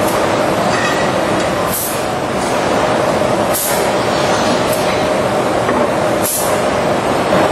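Steady factory machinery noise from an automated adhesive-dispensing robot cell and its roller conveyor: a constant hum with a held mid tone, broken a few times by short, sharp hisses of air.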